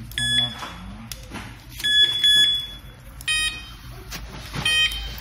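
Wireless carp bite alarm giving short electronic beeps, about five in a few seconds, not all at the same pitch.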